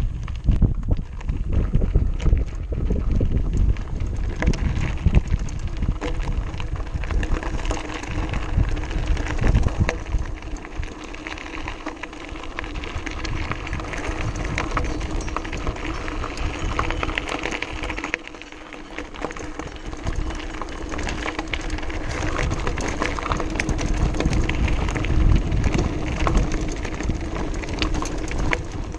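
Mountain bike rolling down a loose gravel track: tyres crunching over stones and the bike rattling with constant small clicks, over a low rumble of wind on the action camera's microphone. It eases off somewhat in the middle and picks up again toward the end.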